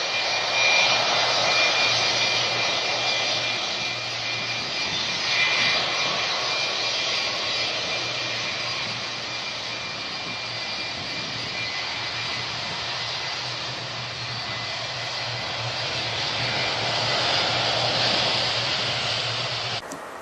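Aircraft engines running: a loud, steady noise with a low hum underneath and a thin high whine, cutting off suddenly near the end.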